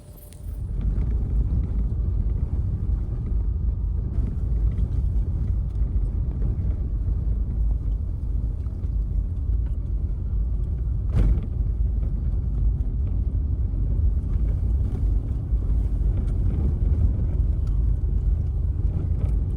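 Steady low rumble, with a single sharp click about eleven seconds in.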